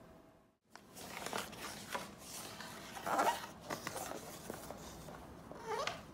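A paper cut-out tiger mask rustling and scraping against a wooden floor as a cat moves about with it hanging from its body, with the loudest scrape about three seconds in.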